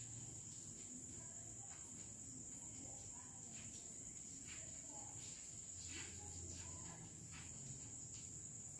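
Faint scratches and taps of chalk writing on a blackboard, over a steady high-pitched whine.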